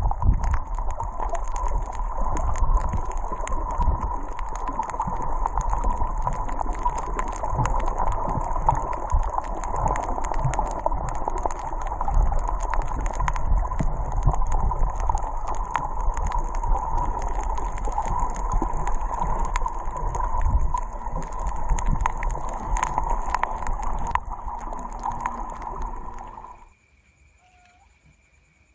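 Underwater sound picked up by a snorkeler's action camera: a steady muffled water rush with dense, irregular crackling clicks. It cuts off suddenly about 27 seconds in to near quiet.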